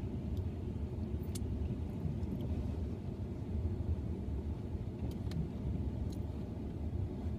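Steady low rumble inside a parked car, with a few faint clicks of wooden chopsticks against a plastic sushi tray.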